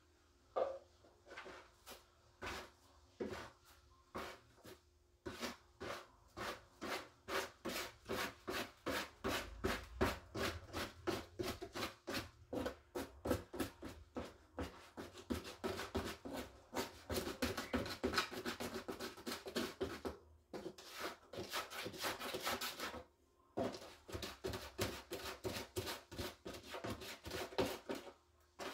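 Plastic slotted litter scoop raking and sifting through granular cat litter in a plastic litter box: repeated gritty scraping and rattling, a few strokes a second, with two short pauses in the last third.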